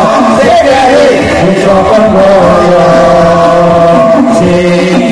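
Hadroh ensemble of men chanting sholawat together into microphones, singing long, held melodic lines through a PA system.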